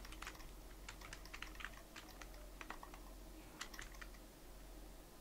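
Typing on a computer keyboard: irregular key clicks in short bursts, thinning out about four seconds in.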